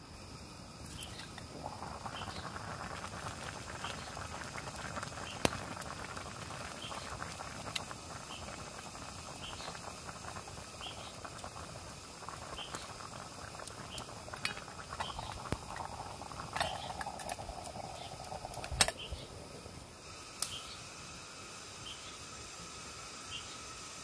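Pot of water bubbling at the boil over a campfire, with scattered crackles and clicks. The bubbling cuts off abruptly right after a sharp knock, a few seconds before the end.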